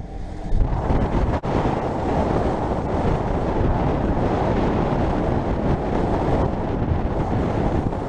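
Strong wind buffeting the microphone, a steady low rumble, over the rush of a boat running through choppy sea.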